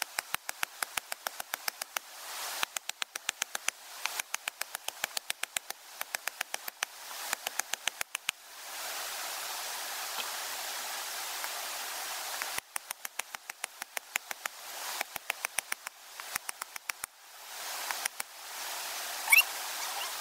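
Machete chopping at a wooden stick in rapid runs of sharp strikes, several a second, with a pause of a few seconds in the middle, over the steady rush of a river.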